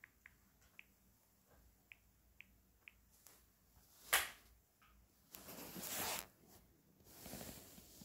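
Several faint tapping clicks, then a sharp louder click about four seconds in, followed by two rustling, scraping noises of about a second each: a phone being tapped and handled close to its microphone.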